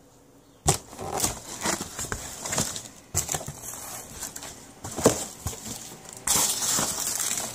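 Cardboard shipping box flaps pulled open and foam packing peanuts rustling and crackling as they are stirred. The sharp rustles start suddenly under a second in and grow denser near the end.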